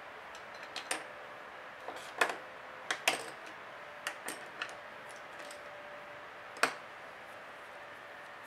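Irregular small clicks and taps of hand tools or small parts being handled on a work surface, about nine in all, the loudest a little after two seconds, at about three seconds and at about six and a half seconds.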